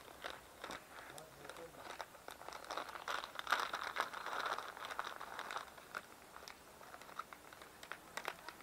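Packaging crinkling and rustling as it is handled, with many light clicks and crackles. It is busiest about three to five seconds in.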